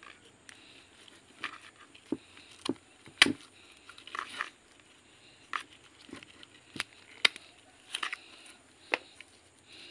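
Irregular sharp snaps and crackles as hands work a split kimeng (Ficus microcarpa) trunk and its dry, wiry roots, about a dozen in all. The loudest come a little past three seconds in and about seven seconds in.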